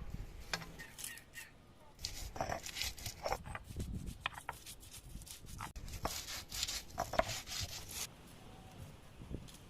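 Irregular scraping, cutting and knocking sounds of food being prepared by hand, in uneven bursts through the middle of the stretch.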